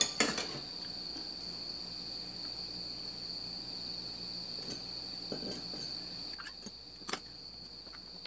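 Soy sauce ladled into a small glass container of dipping sauce with a metal ladle and stirred in with a wooden spoon. A few light clinks and taps against the glass stand out, the sharpest just after the start and about seven seconds in, over a steady high-pitched whine.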